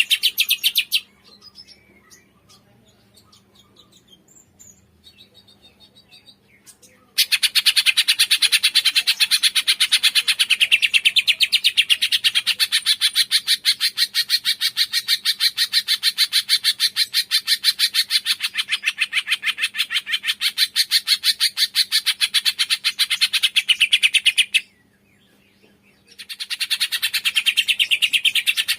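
Cungkok songbird calling in long bouts of fast, rapid-fire high chirps, many a second. It pauses for several seconds after the first second and again briefly near the end before starting up again.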